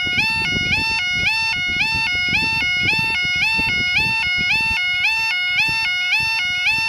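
Level crossing warning alarm sounding, the UK 'yodel' type: a loud two-tone warble that steps between a lower and a higher pitch about four times a second, each step beginning with a short upward swoop. A low rumble runs beneath it.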